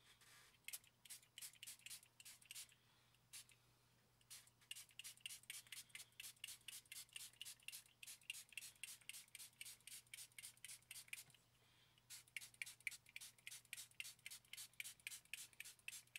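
Small finger-pump spritzer bottle of water with a pinch of isopropyl alcohol, pumped in quick strokes: short hisses of spray at about five a second, in three runs with pauses about three seconds in and about eleven seconds in. It is wetting the model railroad ballast before the diluted matte medium is added.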